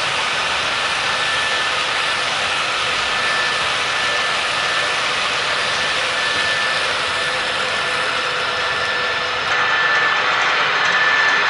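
Model train freight cars rolling past on the track: a steady rolling hiss with a faint, steady high whine. About nine and a half seconds in the sound changes abruptly and gets a little louder.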